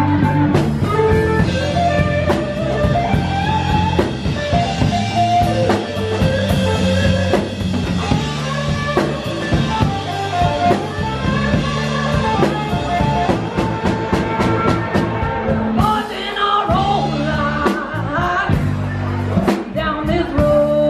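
Live band playing: electric guitar carrying the melody over bass and a drum kit, and a woman's singing voice coming in during the last few seconds.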